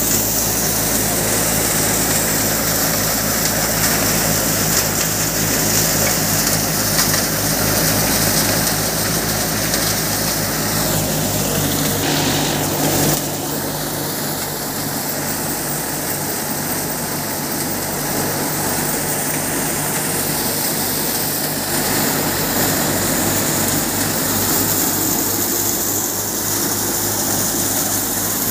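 Tractor-driven Kamdhenu thresher running under load as dry crop stalks are fed into it: a steady mechanical drone. It drops slightly in level about halfway through.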